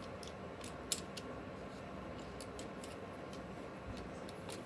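Small clicks and taps of hard plastic from a Mattel Masterverse Thunder-Punch He-Man action figure being handled, the sharpest click about a second in. A faint steady hiss lies underneath.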